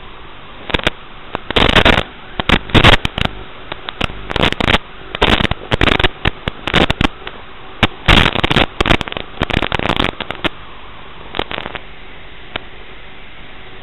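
Steady hiss from an analog FPV video receiver's audio channel, broken by many irregular bursts of loud crackling static as the radio link breaks up, thinning out near the end.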